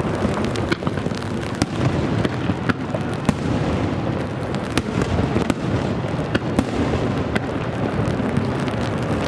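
Aerial fireworks in a continuous barrage, a dense low rumble of booms with many sharp cracks throughout. Rain patters on an umbrella held over the camera.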